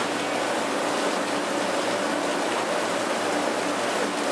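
Train-washing plant spraying water against the side of a JR West 500 series Shinkansen car as it passes through: a steady, heavy rush of water.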